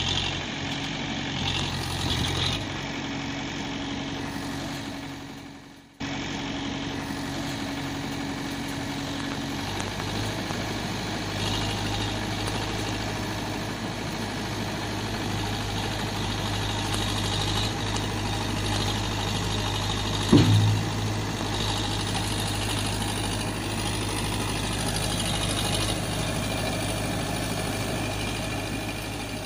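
Recorded heavy-vehicle engine idling steadily, laid over the picture as a sound effect. It fades out and cuts abruptly to a second engine recording about six seconds in, with one short louder knock about two-thirds of the way through.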